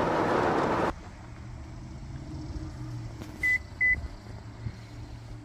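Road noise inside a moving car cuts off abruptly about a second in, leaving a faint low hum; then two short, high electronic beeps sound about half a second apart.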